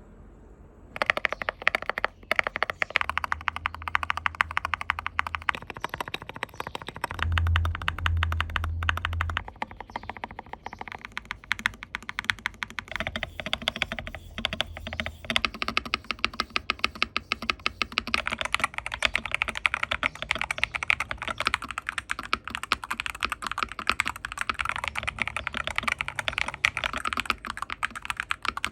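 Fast, continuous typing on a MADLIONS MAD68 HE magnetic keyboard fitted with Gateron Jade switches, a dense run of keystroke clacks starting about a second in.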